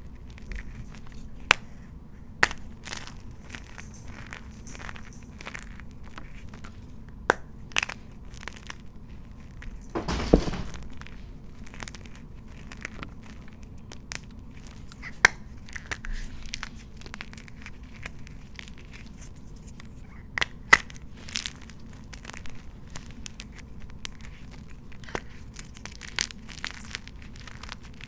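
Blocks of gym chalk crushed and crumbled by hand, with sharp snaps and crunches at irregular intervals and a longer crunch about ten seconds in.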